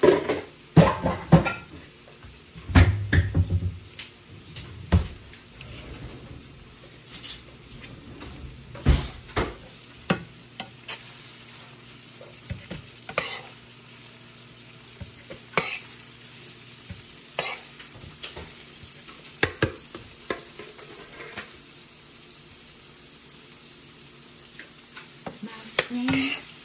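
Beef and broccoli being stirred in a ceramic-lined skillet: spoons scrape and knock against the pan at irregular moments, busiest in the first few seconds, over a steady low sizzle of the food frying.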